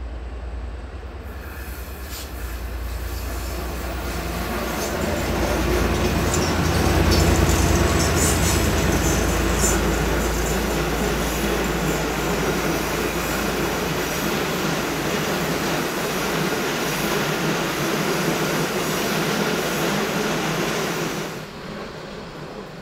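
A train passing close by: rumble and rail noise build over several seconds to a peak, with high-pitched wheel squeal on the rails in the middle. The sound drops off sharply near the end.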